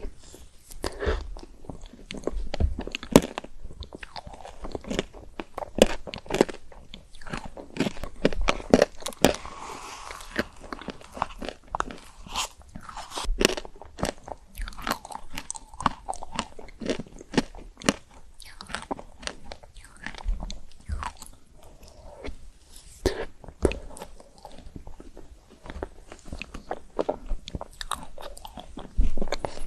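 Close-miked eating: repeated sharp crunches of biting into frozen chocolate-coated Tico ice cream, with chewing in between.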